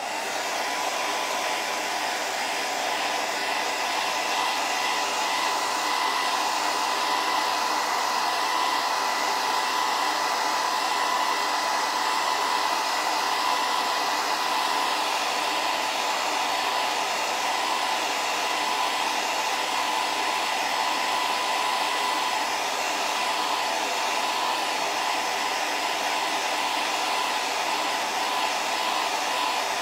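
Handheld hair dryer switched on and running at a steady pitch: a loud, even rush of blown air with a steady whine under it.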